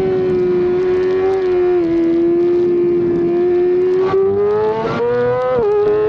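Yamaha YZF-R6's inline-four engine at high revs on track, held steady through a long corner. About four seconds in the revs climb, then drop sharply near the end, as on an upshift, and start climbing again.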